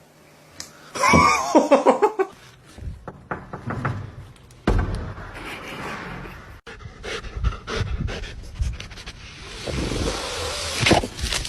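A dog panting in short breathy strokes, with a short pitched cry about a second in.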